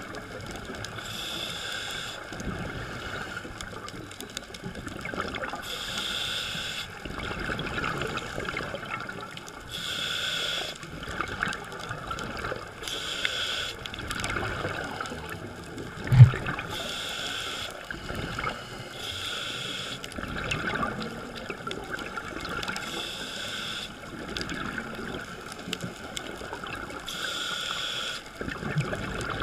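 Scuba diver's breathing through a regulator, heard underwater: a hiss about every four seconds with gurgling bubbles between, over a steady hum. One dull knock about sixteen seconds in.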